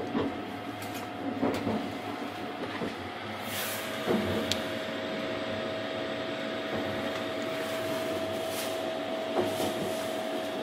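Running noise of the Sunrise Izumo sleeper train heard inside a compartment: a steady rumble and hiss with a steady hum held through it, and a few sharp knocks at intervals.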